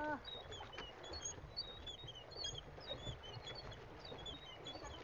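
Small birds chirping over and over in short, high notes, over a low steady rumble.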